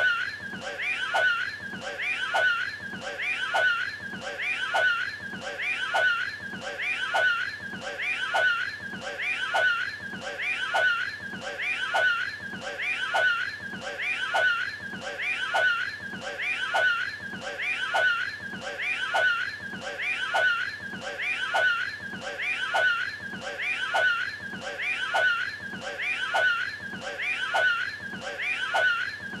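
A short clip of the Cat in the Hat's voice, looped so that it repeats about once a second without a break, standing for him throwing a hairball.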